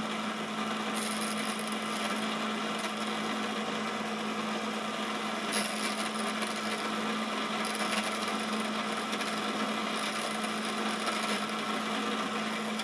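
Quorn tool and cutter grinder running with a steady hum as the wheel grinds the end faces of a 1-inch end mill, with several short stretches of high hiss as the cutter is swept across the wheel. The motor hum stops near the end.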